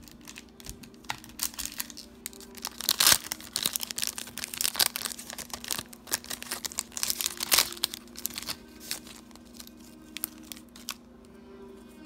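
Foil trading-card booster packs crinkling and being torn open, with irregular rustling and ripping, loudest about three seconds and seven and a half seconds in, over a faint steady hum.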